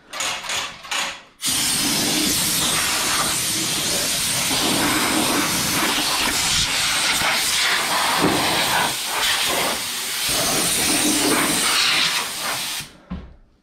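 Air blow gun blasting sawdust off a jointer table: a few short puffs, then a long steady hiss of air that cuts off sharply near the end.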